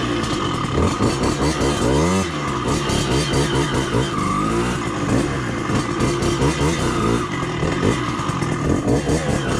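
Motorcycle engine running under way, its pitch rising and falling repeatedly as the bike accelerates and eases off.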